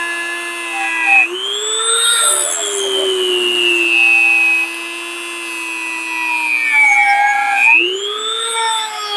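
A Dremel-type high-speed rotary tool grinding, enlarging a hole. Its motor whine sags as it bites and rises sharply when the load eases, about a second in and again near the end.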